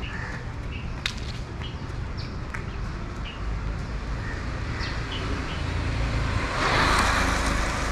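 Outdoor street ambience: short bird chirps scattered over a steady low rumble of distant traffic, with a brief rush of hissing noise swelling up about a second before the end.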